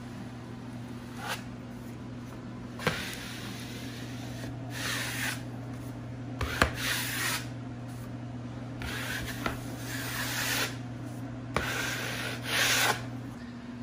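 A hand tool rubbing in about five short strokes across wallpaper on a wall, with a few light clicks between them. A steady low hum runs underneath and stops near the end.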